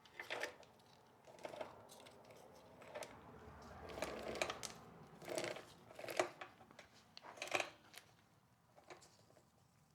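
Intermittent handling noise: about seven short rustles and light clatters as parts and tools are moved about.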